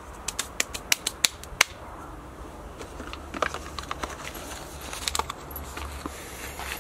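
A quick run of about eight sharp clicks and taps in the first second and a half, then scattered softer clicks and rustles, from hands working soil in a plastic planter box.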